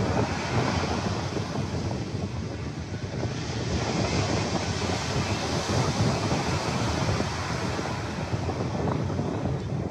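Surf breaking and washing up a sandy beach, under steady wind buffeting the microphone.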